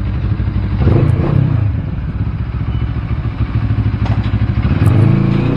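CF Moto 650's parallel-twin engine idling, blipped up briefly twice: once about a second in and again near the end.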